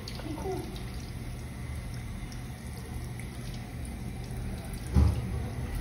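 Water running from a faucet into a sink while hands are washed under the stream, steady throughout. A low thump sounds about five seconds in.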